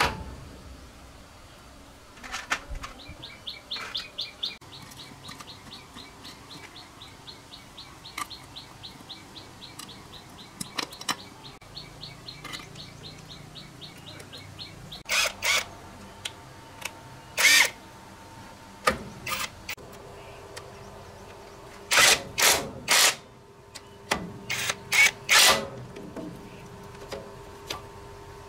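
Cordless impact wrench run in several short bursts, undoing bolts on a single-cylinder diesel engine. Before the wrench starts, a rapid, even high chirping goes on for about twelve seconds.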